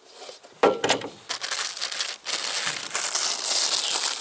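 A sharp knock about two-thirds of a second in, then a steady crinkling, crackling rustle.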